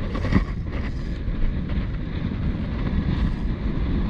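Wind buffeting the microphone as a steady low rumble, with one short louder bump near the start.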